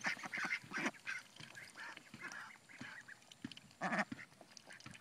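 Young ducks calling: a quick run of short calls in the first second, then scattered calls, with one louder call about four seconds in.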